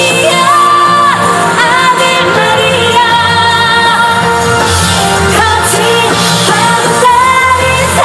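Live pop music played over a stage sound system, with a woman singing over a recorded backing track.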